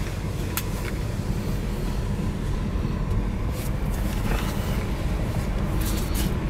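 Mercedes R107 500SLC's V8 engine running steadily at low revs, a deep even rumble heard from inside the cabin, with a few sharp clicks.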